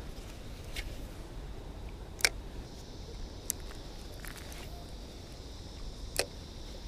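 Quiet handling of a light spinning rod and reel during a lure retrieve: a few sharp clicks, the loudest about two seconds in and another near the end, over a low rumble. A steady high hiss joins from about three seconds in.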